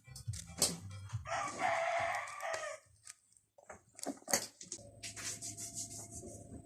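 A rooster crowing once, a call about a second and a half long, followed by a few scattered clicks and a faint steady hum.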